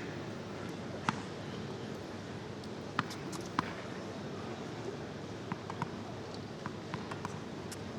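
Tennis ball being struck and bouncing during a point: a few sharp pops in the first four seconds, then lighter irregular ticks, over the steady hush of a stadium crowd.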